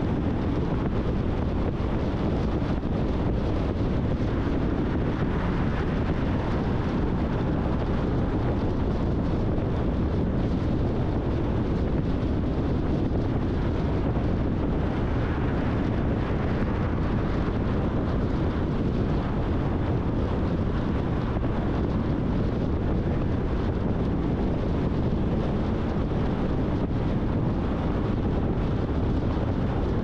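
Steady road and wind noise of a car driving at freeway speed, a constant low rumble of tyres and engine with wind buffeting the microphone.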